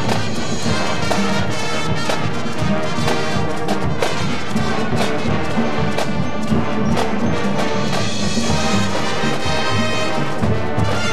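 High school marching band playing: full brass (trumpets and trombones) with sharp percussion hits from the drum line.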